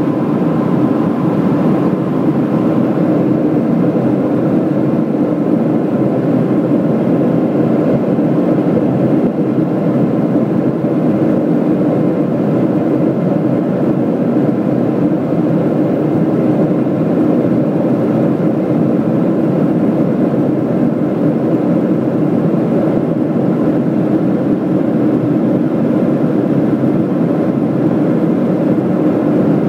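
Steady jet engine and airflow noise inside the cabin of a Boeing airliner in flight. It is an even, unchanging drone, heaviest in the low-mid range.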